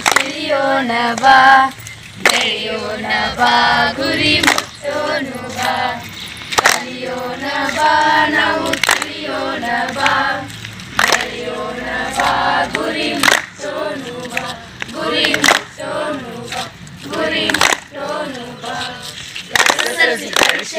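A group of students singing a Kannada song together, keeping time with sharp hand claps about once a second.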